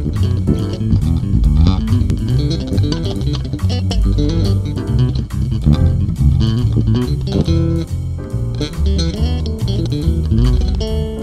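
Ibanez BTB six-string electric bass played fingerstyle: a jazz swing solo, a quick, continuous run of plucked notes.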